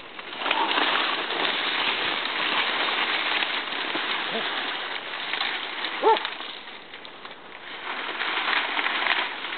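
Stiff saw palmetto fronds rustling and crackling as people push through dense scrub, in two stretches with a lull about seven seconds in. A brief pitched call sounds about six seconds in.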